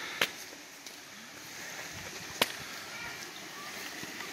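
Steady rush of a rain-swollen creek, with two sharp knocks about two seconds apart.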